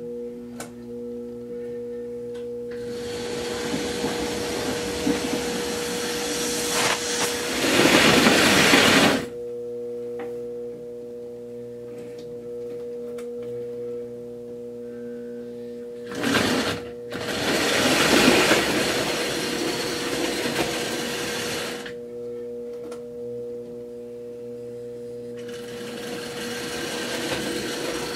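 OO gauge model railway running under power: a steady electric hum, with several louder stretches of rushing wheel-and-motor noise, the loudest about eight seconds in, and a short burst about sixteen seconds in.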